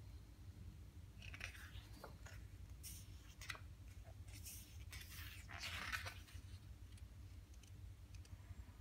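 Pages of a large hardcover photo book turned by hand: a few soft paper rustles and swishes, loudest about six seconds in.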